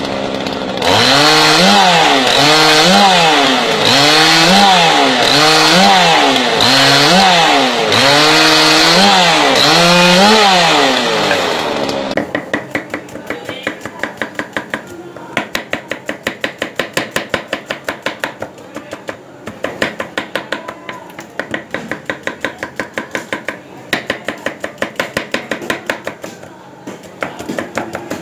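A Husqvarna chainsaw clamped in a frame, revving up and down over and over, about once a second, as a branch is fed through and cut; it stops about twelve seconds in. Then a knife chopping onions fast on a board: quick sharp taps, about three a second.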